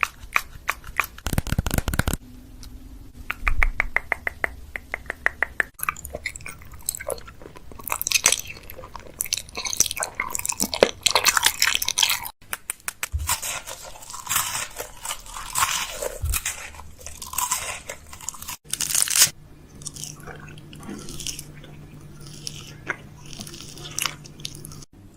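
Close-miked mouth sounds: wet clicks, smacks and crunchy, chewing-like noises, including a fast, even run of clicks a few seconds in.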